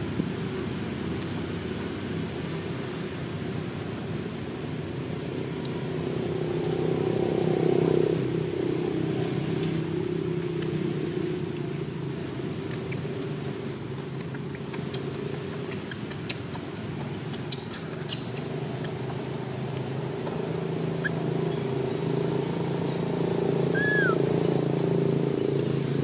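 A vehicle engine running steadily nearby, its hum swelling about eight seconds in and again near the end. A few light clicks come in the middle, and two short chirps near the end.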